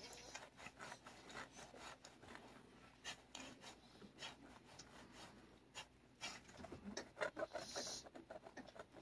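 Faint, irregular rubbing and scraping of a thick suede work glove stroking a cat's fur, with a few louder scrapes near the end.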